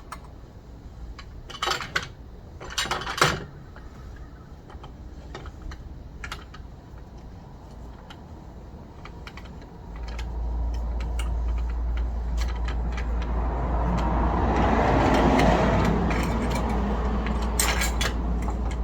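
Light metallic clanks and clinks of a car's scissor jack being handled and set in place, loudest in the first few seconds. From about ten seconds in a steady low rumbling noise sets in, swelling to a peak a few seconds later and easing off.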